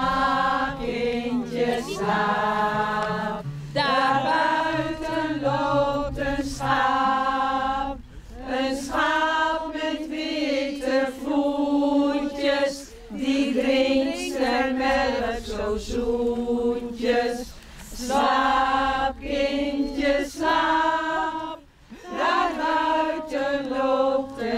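Unaccompanied singing: voices holding long sung notes, phrase after phrase, with short breaks between them.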